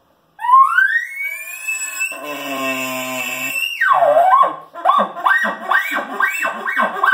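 An elk bugle blown on a Little Bighorn external elk call. A whistle rises to a high held note, and a guttural growl, a lip bawl, comes in underneath it. The note then drops sharply into a series of chuckles, about two a second.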